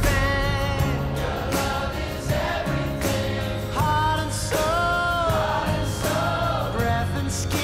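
Background music with choir-like voices singing long held notes that slide between pitches, over a steady low accompaniment.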